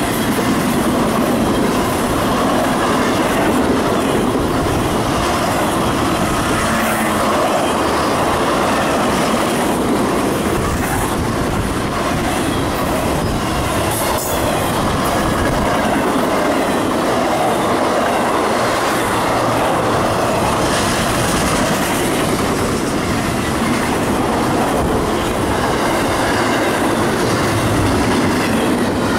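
Cars of a CSX intermodal freight train, trailers on flatcars and double-stack container well cars, rolling steadily past close by. A loud, continuous rumble of steel wheels on rail, with wheels clacking over rail joints now and then.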